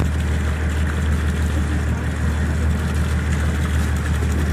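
Motorboat engine running with a steady low drone, unchanging throughout.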